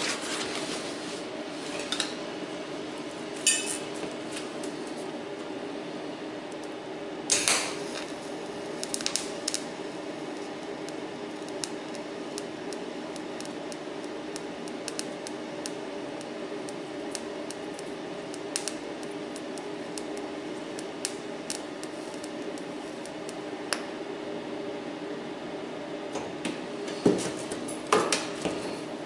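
TIG welding on sheet steel: a steady hum from the welding set, with many light metallic clicks and clinks as the torch and filler rod touch the steel. A few louder clinks come about seven seconds in and near the end.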